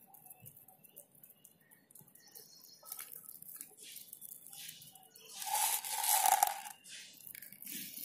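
Rock pigeons pecking grain off a concrete floor close to the microphone: scattered light taps and crunches. About five and a half seconds in there is a louder rustling noise lasting about a second.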